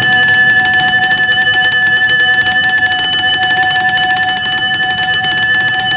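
Continuous bell-like ringing with a fast flutter, held at a steady pitch.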